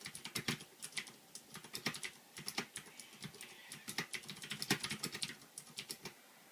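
Typing on a mechanical keyboard with Cherry MX Blue switches: quick, irregular bursts of sharp clicking keystrokes with short pauses, considerably loud.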